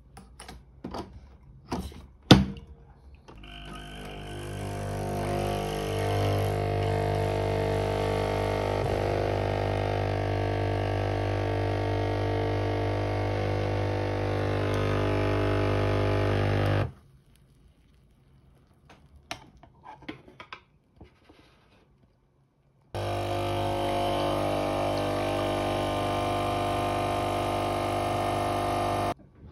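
A Nespresso capsule coffee machine. It clicks as the capsule goes in and the lever is snapped shut, with one loud click about two seconds in. Its pump then buzzes steadily for about fourteen seconds while it brews espresso, and stops abruptly. After a few small clicks and a short pause, a second pump run of about six seconds sends plain hot water through the machine as a rinse.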